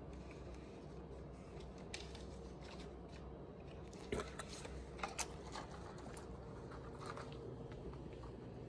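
Quiet room tone with a steady low hum, broken by a handful of faint clicks and small handling noises, the loudest about four seconds in.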